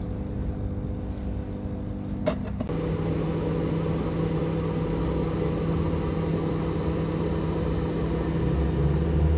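Steady electric hum of a smoke generator's air compressor running at full power. There is a click a little over two seconds in, after which the hum changes in tone and carries on steadily.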